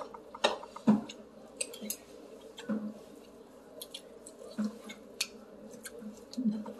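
Metal fork clicking and scraping against a glass serving bowl as pieces of meat are picked out, a dozen or so scattered light clicks, with chewing and mouth sounds in between. A faint steady hum runs underneath.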